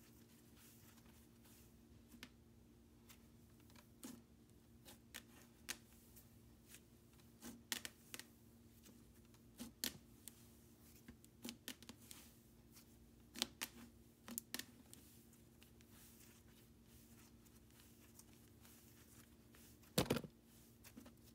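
Cloud slime being handled and played with: faint, scattered small clicks and crackles, then one louder handling noise near the end, over a low steady hum.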